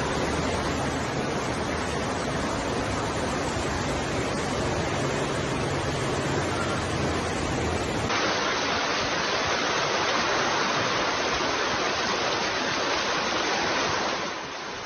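Fast floodwater rushing along a street, a steady loud rush of water. The sound changes abruptly about eight seconds in as a second stretch of fast, brown floodwater begins, and it drops a little softer near the end.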